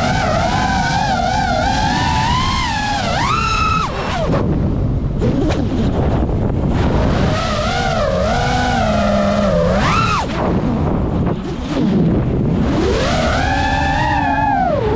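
FPV racing drone's brushless motors whining over a rushing noise, the pitch wobbling and gliding up and down with the throttle. The pitch climbs sharply and drops back about three and a half and ten seconds in, then rises again near the end.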